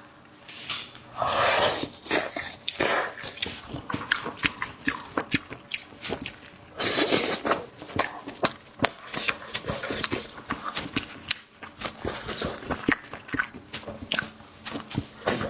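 Close-miked wet chewing and lip-smacking of fatty meat: many quick, sharp smacks and clicks, with a few louder, longer bursts about a second in, around three seconds in and about seven seconds in.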